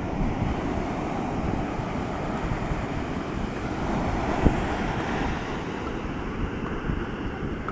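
Atlantic surf breaking and washing up a sandy beach at spring high tide, with wind rumbling on the microphone. A short thump about four and a half seconds in.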